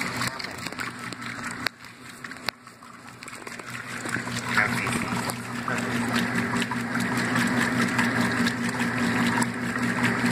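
Older Maytag top-loading washing machine running: two sharp clicks, then its motor hum builds over a few seconds to a steady drone, with water being pumped out.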